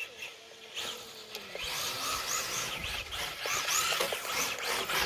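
Traxxas 4-Tec RC drift car's electric motor whining, rising and falling in pitch as the throttle is blipped over and over, about two or three times a second.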